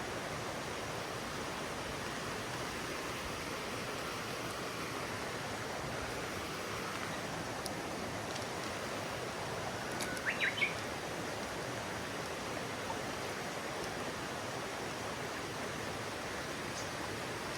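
A mountain stream's water rushing steadily, with a bird giving three quick high chirps about ten seconds in.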